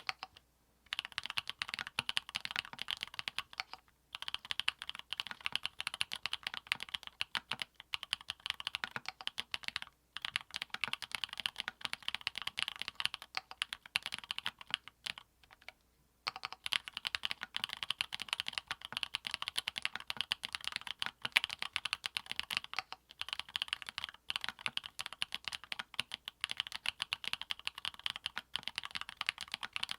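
Custom 60% mechanical keyboard (Monstargear Sangeo60 with aluminium plate, lubed Everglide Dark Jade switches and PBT keycaps) being typed on fast and continuously. The keystrokes run as a dense stream of clacks, broken by a few short pauses, the longest around the middle.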